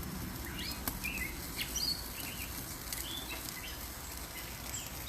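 Tomahawk steak sizzling as it sears on a very hot grill, a steady hiss, with birds chirping repeatedly in the background.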